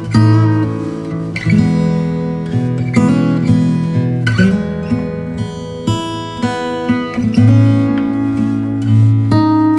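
Background music: acoustic guitar plucked and strummed, with a fresh chord every second or so.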